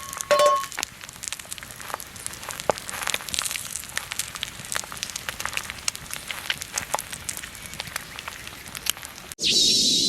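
Wood fire crackling, with many sharp, irregular pops over a steady hiss. Near the end it cuts abruptly to a louder, continuous hiss.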